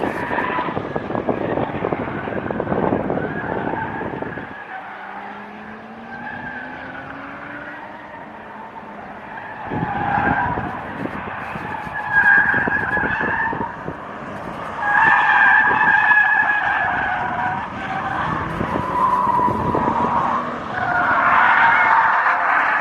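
Car tyres squealing again and again through hard cornering, several squeals of a few seconds each, with the loudest near the end. Wind buffeting on the microphone rumbles underneath, and a faint rising whine comes in for a few seconds during a quieter stretch.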